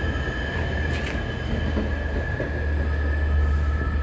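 Long Island Rail Road bilevel passenger coaches rolling past as the diesel-hauled train pulls out of the station: a steady high-pitched wheel squeal over a low rumble, with a faint click about a second in.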